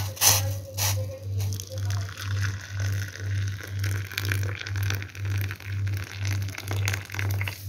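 Water pouring in a thin stream into a glass mug of instant coffee, a steady gush, over background music with an even low beat about twice a second. A couple of sharp knocks come in the first second.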